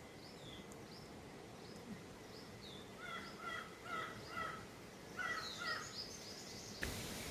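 Wild birds calling faintly: a run of thin, high, falling notes, then from about three seconds in short harsh calls repeated two or three a second, in two groups. Near the end a steady hiss comes in abruptly.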